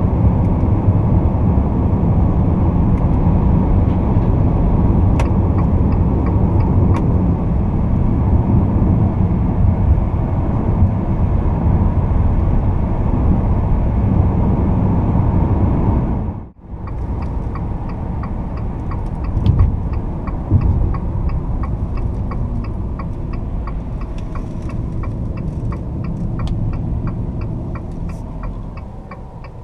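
Inside the cab of a Fiat Toro with its 2.0 turbodiesel four-cylinder: steady engine, tyre and wind noise while cruising at highway speed. Then, after a brief cut, quieter low-speed running with a couple of low thumps and the turn-signal indicator ticking regularly.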